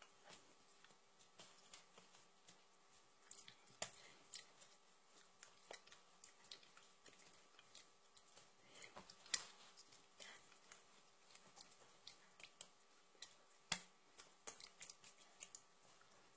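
Near silence broken by faint, irregular clicks, taps and rustles of hands, clothing and mouth movements from a person signing, with a few sharper clicks among them, over a faint steady hum.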